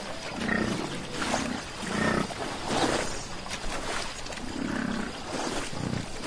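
American bison giving about five low, bellowing calls as it wades through shallow water, with water splashing between them.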